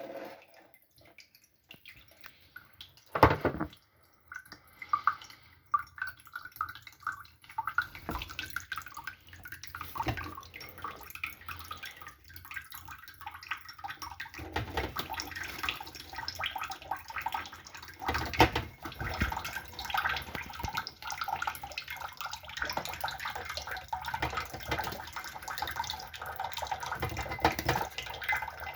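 Water from a running tap splashing and dripping irregularly. There is one loud sharp knock or splash about three seconds in, and the splashing grows busier about halfway through.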